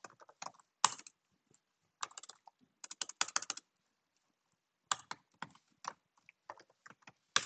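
Typing on a computer keyboard in short bursts of keystrokes with pauses between them, including a quick run of keys about three seconds in.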